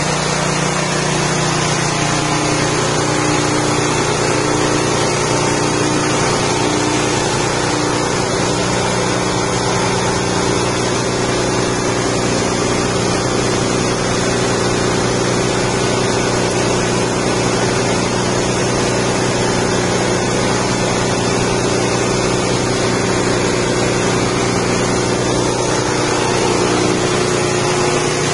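Small 6.5 hp petrol engine running steadily at a constant speed, driving a rice-husk grinding machine.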